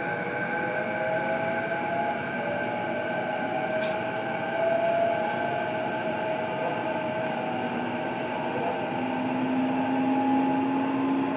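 E233 series electric train heard from inside a motor car, running with steady rail noise while the inverter and traction motors whine in tones that slowly rise as it picks up speed. A single sharp click comes about four seconds in.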